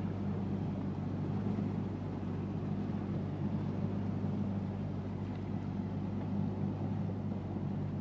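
Boat engine running steadily under way, heard from inside the wheelhouse as a constant low drone over a wash of water and hull noise.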